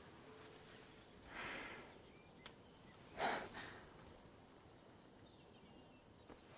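A woman's breathing, close up: a soft breath about a second in, then a sharper, louder exhale about three seconds in, over faint steady background hiss.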